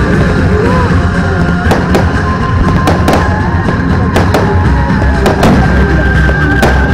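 Fireworks display: aerial shells bursting in repeated sharp bangs, every half second or so, over loud music with a heavy bass.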